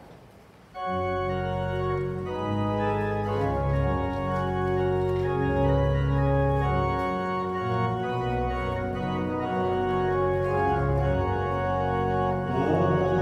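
Church organ starting up about a second in and playing slow sustained chords over deep bass notes, the closing music after the final blessing of Mass.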